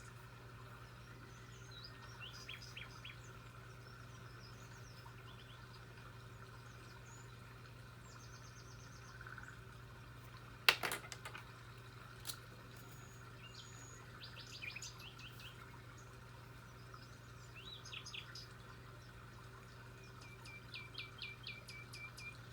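Birds chirping and trilling in short, scattered calls over a steady low hum, with one sharp click about halfway through.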